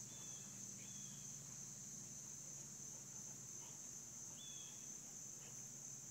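Faint, steady high-pitched drone of an insect chorus, with a few short, faint chirps over it.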